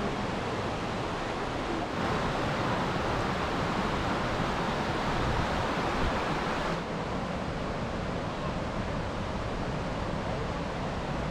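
Steady rushing of water from a river and waterfall, a little louder and brighter from about two to about seven seconds in.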